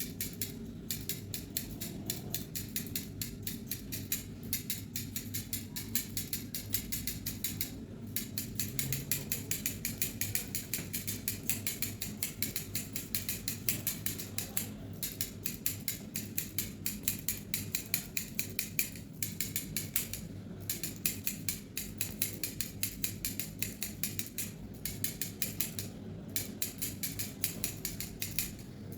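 Barber's scissors snipping hair in a rapid, steady series of crisp clicks, pausing briefly a few times.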